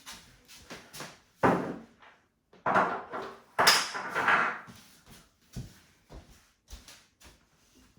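Household objects being picked up, shifted and set down on a hard surface: a string of separate knocks and clunks, with a louder, longer scraping clatter a little before the middle, then small light clicks.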